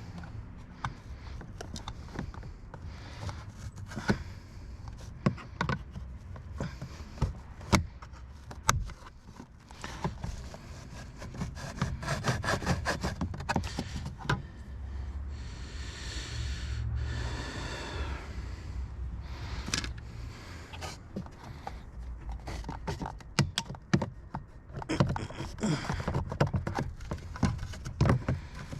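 A stuck plastic trim piece on a car's rear door panel being worked and pried loose by hand: scattered plastic clicks and knocks, with stretches of scraping and rubbing as it is pulled free.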